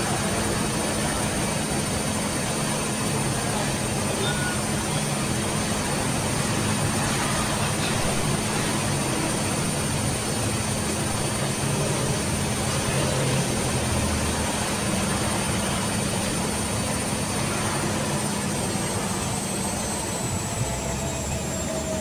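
Electrolux EWF85761 front-loading washing machine in its high-speed spin at 850 rpm: a steady whirring hum with a high whine. Near the end the whine begins to fall in pitch as the drum starts to slow.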